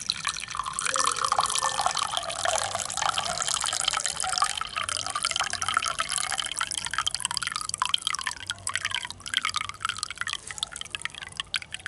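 Herbal tea poured in a steady stream into a drinking glass, splashing and bubbling as the glass fills. In the last few seconds the flow breaks into an uneven trickle and drips, then stops.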